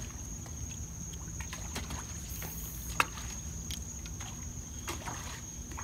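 Quiet ambience aboard a small fishing boat on the water: a steady low rumble with scattered faint clicks, one sharper click about three seconds in, and a thin steady high-pitched whine.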